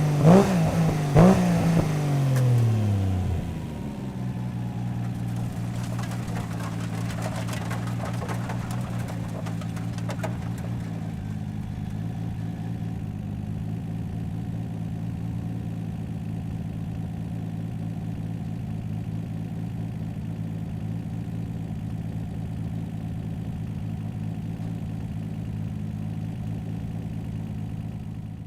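Nissan R32 GT-R's tuned RB26 straight-six, built to about 900 hp, blips twice and falls in pitch as it comes off the throttle over the first few seconds. It then settles into a steady idle.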